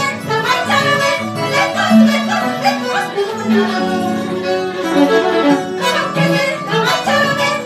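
Live jarana dance music played on an Andean harp with quick plucked notes, with a bowed melody line over it.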